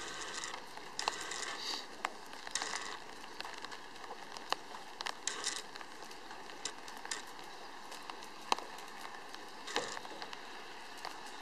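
Faint crackling and rustling with scattered sharp clicks over a steady hiss.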